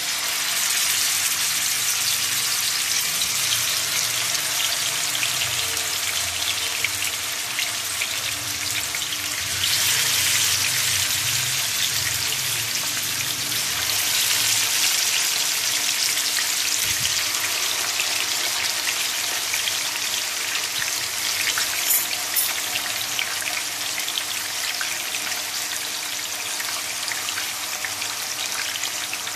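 Marinated chicken pieces sizzling in hot oil in a non-stick frying pan: a dense, steady hiss and crackle of shallow-frying that begins as the first piece goes in and keeps on as more pieces are added.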